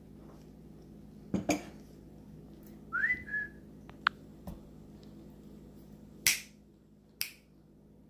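White cockatoo pecking at bread on a plastic plate, its beak making sharp clicks a second or two apart. About three seconds in there is one short whistle that rises and then holds.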